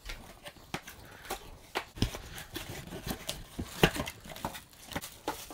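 Cardboard box being unpacked: flaps and a cardboard insert handled and pulled out, with plastic wrapping rustling and irregular knocks and scrapes. One sharper knock comes about four seconds in.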